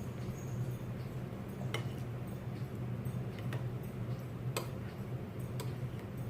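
Close-miked eating sounds of someone eating menudo: a few sharp mouth and utensil clicks, spaced a second or more apart, over a steady low hum.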